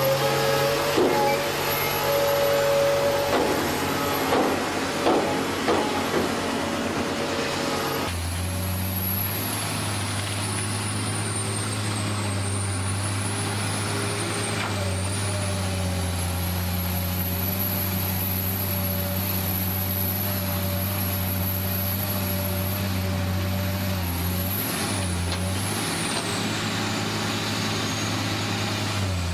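Heavy diesel excavators running, with a few knocks and clanks at first. About eight seconds in the sound changes abruptly to a steady low engine drone with a faint wavering high whine.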